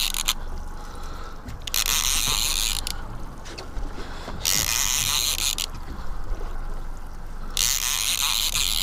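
Fishing reel being cranked in short spells of about a second each, three times, to bring in a hooked fish, over a steady low hum.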